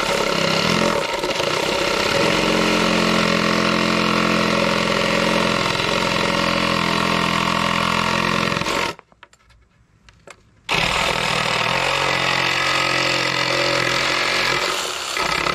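Cordless reciprocating saw cutting through a wooden board, its motor running steadily. It stops for about two seconds past the middle, then starts cutting again.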